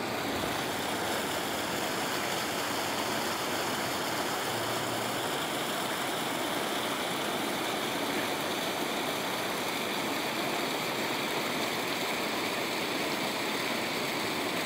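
Water pouring steadily into a fish pond, a constant rushing splash with no breaks.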